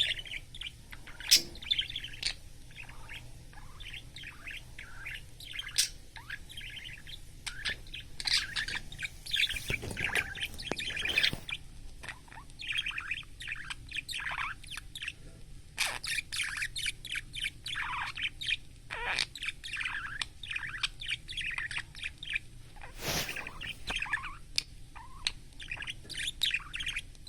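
Budgerigar chattering in quick, continuous chirps and warbles, broken by a few sharp clicks or taps.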